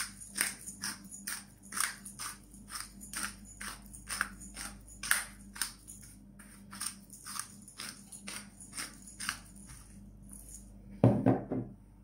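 A wooden spoon stirring a moist mushroom, carrot and onion mixture in a glass baking dish: soft, squelchy scraping strokes at about three a second that stop about ten seconds in, followed by one brief louder sound about a second later.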